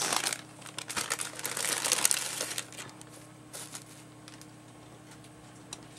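Rustling and crinkling of craft materials being handled: a busy patch of soft crackles and scrapes over the first three seconds, then a few faint taps.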